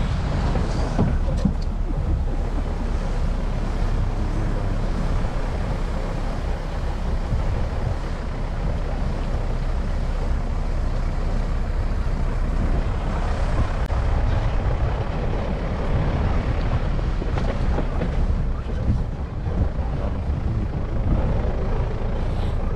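Wind buffeting the microphone: a steady, gusty low rumble under a wash of noise.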